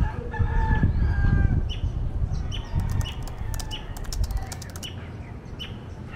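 A rooster crows once, about a second and a half long, over a steady low rumble of wind on the microphone, with small birds chirping. From about three seconds in comes a quick run of sharp typing clicks.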